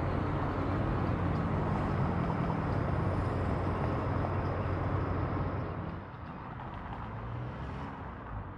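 Car engine running with a steady low hum and road noise, heard from inside the car. About six seconds in it gives way to quieter, even street noise.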